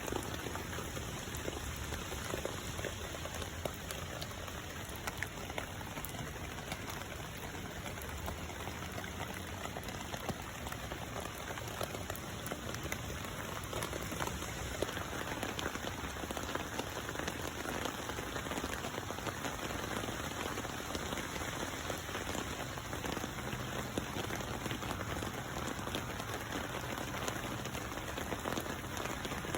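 Steady rain falling on a pond's water surface, a dense patter of many small drops.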